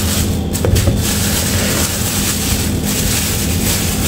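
A thin plastic bag crinkling and rustling in irregular crackles as hands pull whole milkfish out of it, over a steady low hum.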